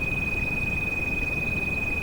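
A steady high-pitched pure tone, the tinnitus-therapy frequency, held without change over a constant rain-noise bed that sits mostly low in pitch.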